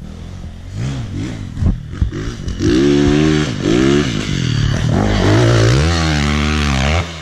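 Two-stroke Yamaha dirt bike engine being ridden, its revs climbing about two and a half seconds in and then rising and falling several times with the throttle and gear changes.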